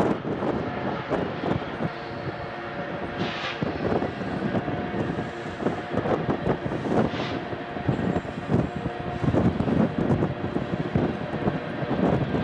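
Distant freight train running across an elevated bridge: a steady rumble from the diesel locomotive and rolling tank cars, with two brief high-pitched squeals about three and seven seconds in.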